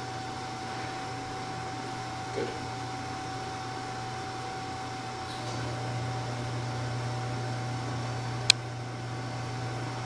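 Steady low hum with an even hiss and a thin high tone, getting slightly louder about halfway through. A soft knock about two and a half seconds in and a single sharp click about eight and a half seconds in.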